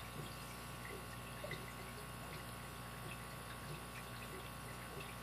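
Faint, scattered light clicks and scrapes of a lock pick and tension wrench working in a late-1970s Master gun lock, a four-pin tumbler lock, over a steady low hum.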